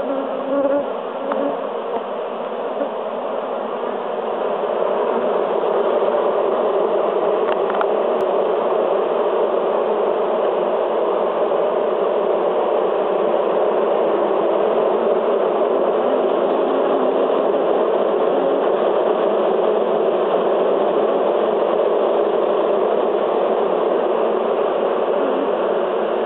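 Honeybees humming in a dense mass at crowded hive entrances: a loud, steady buzz of many wings. It grows louder over the first few seconds, then holds even.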